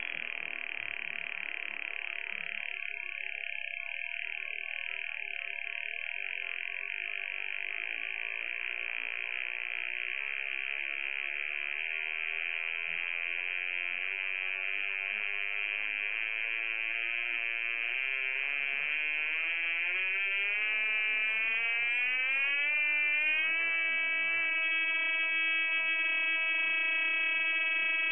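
Simple transistor audio oscillator (buzzer), built around a bipolar transistor deliberately connected the wrong way round, sounding a steady high buzzing tone through a small loudspeaker. About two-thirds of the way in, its pitch glides upward over a few seconds, then holds steady again, slightly louder.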